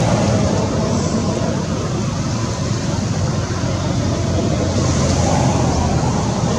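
Steady rain falling through the forest canopy onto leaves: a continuous hiss with a low rumble underneath.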